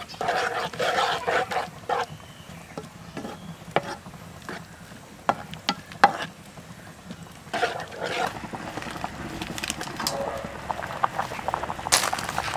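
A spatula stirring a wet mix of chopped chili and shallot in a metal skillet, scraping the pan and knocking against it at irregular moments, with one sharp knock near the end.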